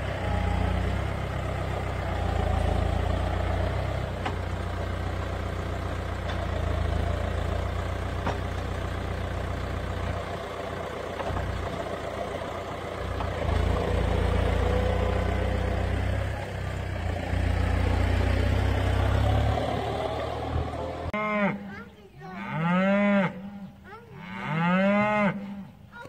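A farm tractor's engine runs steadily while its front-end loader lifts silage over a feed wagon. About twenty seconds in it gives way to cattle mooing loudly, several long calls that rise and fall in pitch.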